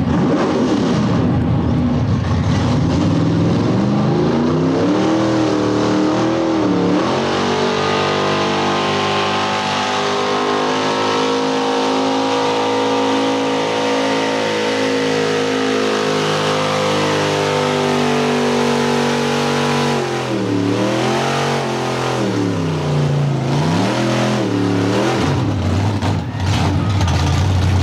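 Engine of a lifted 1971 Ford pickup mega truck at full throttle under load, hauling a pulling sled: the pitch climbs, then holds high and steady for about ten seconds. About twenty seconds in the throttle comes off and it revs down and up twice before settling to a low idle near the end.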